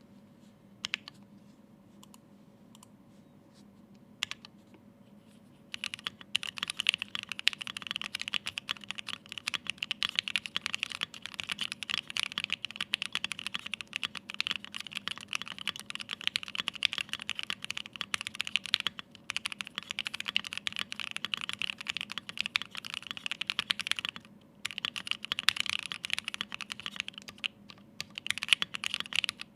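Typing on a Bakeneko 60 mechanical keyboard with lubed Pinoko switches, an FR4 plate, ePBT keycaps and no foam. At first there are a few single key clicks, then fast continuous typing sets in, broken by a few short pauses.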